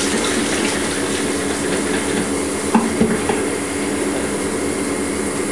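Bathroom sink tap running with a steady rush of water, with two small knocks of the developing tank or bottle against the sink about three seconds in.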